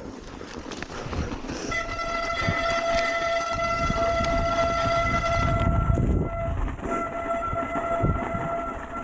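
Mountain bike brakes squealing in one long steady high-pitched tone that starts about two seconds in and breaks off briefly about six seconds in, over a low rumble.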